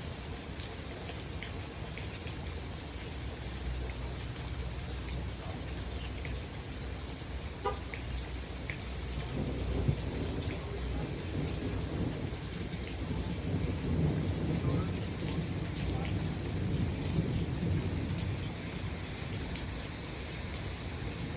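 Steady spring rain falling, with scattered drips, and thunder rolling low in the background. The rumble swells about halfway through and keeps going.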